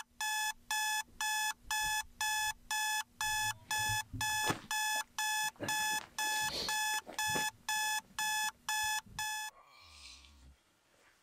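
Electronic alarm beeping, about two evenly spaced high beeps a second, cutting off suddenly near the end as it is switched off. Bedding rustles under the beeps.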